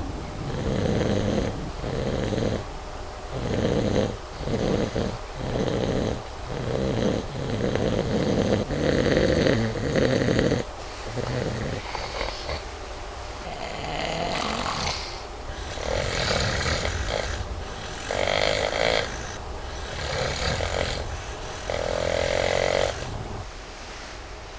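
Loud snoring from a sleeping man: quick rhythmic snorts through the first ten seconds, then slower, longer snores about every two seconds.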